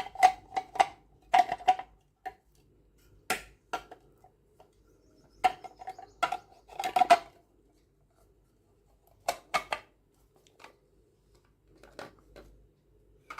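Hard plastic parts of a cold-press slow juicer being handled and fitted together: irregular clicks and knocks coming in clusters, with short quiet gaps between.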